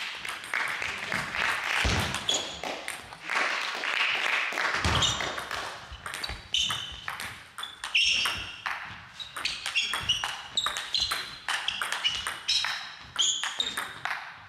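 Table tennis rally in a sports hall: the ball clicks sharply off the bats and the table again and again, with short squeaks from shoes on the gym floor. A voice and hall noise come in over the first few seconds.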